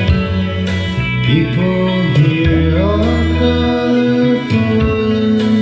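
Guitar-led music with gliding notes, played back from a prerecorded cassette on a Pioneer CT-W616DR cassette deck.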